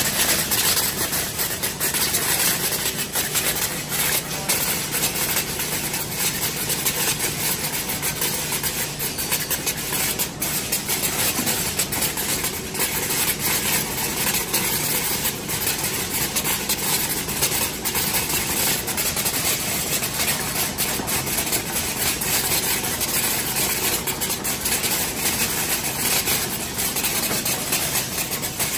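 Date sorting line machine running: a steady mechanical hum and hiss, with rapid, irregular clicks and ticks all through.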